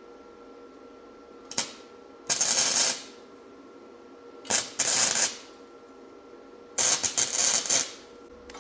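Electric arc welder laying three short tack welds on a steel frame, each a burst of crackling arc under a second long, about two seconds apart, after a single sharp click.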